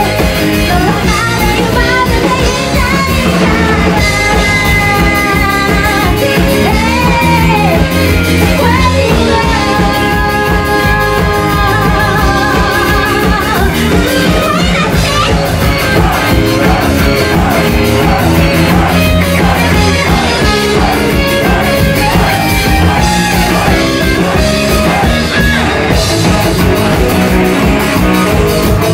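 Rock band playing live: a woman singing over electric bass, electric guitar and drum kit.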